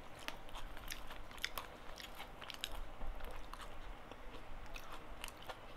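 A person chewing a mouthful of gado-gado, close-up mouth sounds of biting and chewing with many small scattered clicks and smacks throughout.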